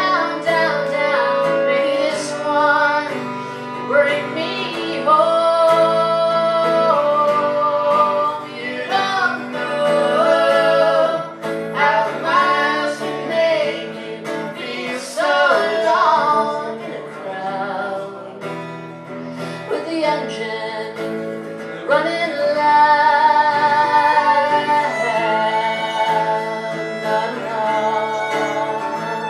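Country song played live by a band with guitar and fiddle.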